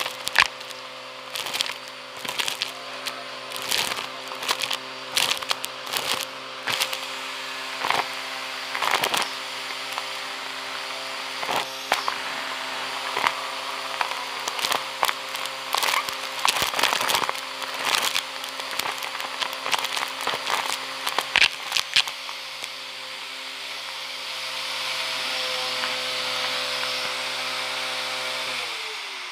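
Vacuum cleaner hose sucking up a dusty pile of grit and small debris, with a steady motor hum and dense crackling and rattling as bits are pulled up the hose, heard through a microphone strapped to the hose. In the last few seconds the crackle stops and only a smooth rush of air is left. Near the end the hum drops in pitch as the motor winds down.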